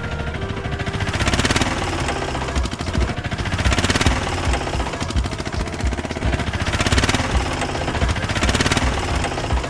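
Rapid knocking of a small engine, the sound of an auto-rickshaw straining to tow, swelling louder every second or two.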